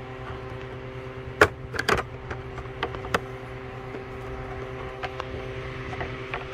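Steady background machine hum with several fixed tones, and a handful of sharp metallic clicks and taps from the small engine's throttle linkage and cable being handled by hand. The loudest click comes about one and a half seconds in.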